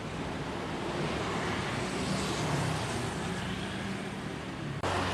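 Road traffic: a motor vehicle's engine and tyre noise swelling a little as it goes by, with a brief break near the end.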